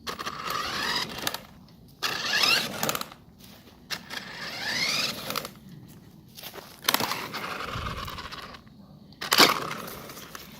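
Small Polaris Outlaw youth ATV engine revved in five short bursts, each rising in pitch and then dropping away, with a loud clicking that is getting worse.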